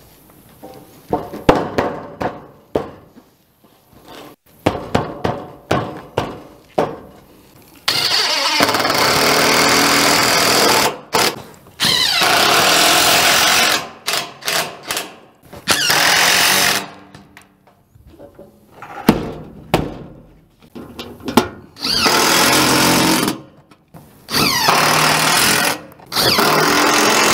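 Cordless screw gun driving screws through steel roofing panels into the wood lathing, in about six runs of one to three seconds each. Before the first run there are scattered knocks and rattles of the metal sheet being handled.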